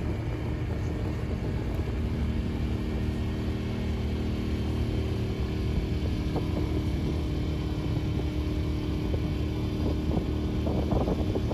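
An engine running steadily at one pitch, a low hum of several steady tones, with a few faint ticks about ten seconds in.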